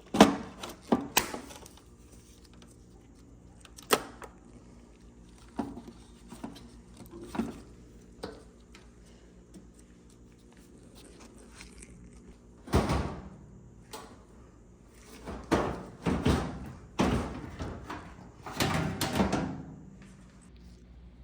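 Irregular knocks and clunks of a dryer's metal panels and parts being handled during disassembly, with a few longer scraping or sliding stretches in the second half. The dryer is not running.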